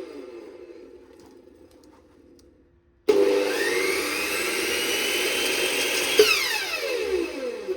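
Ryobi TS-381 380 mm tabletop cut-off saw: the tail of a wind-down fades out, then about three seconds in the motor is switched on and spins up with a rising whine. It runs steadily with no load for about three seconds, then is switched off, its pitch falling as the blade coasts down.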